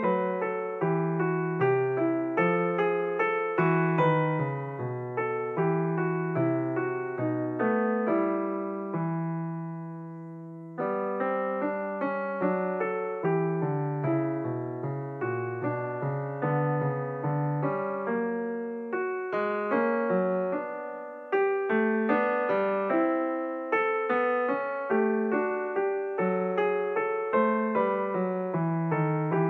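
Background piano music, a slow piece of struck notes. About nine seconds in a chord is held and dies away before the playing resumes, with another short break about twenty-one seconds in.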